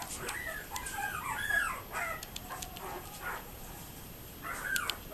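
Young Yorkipoo puppies whining and squeaking: a run of short, high, wavering calls over the first two seconds or so, and one more near the end.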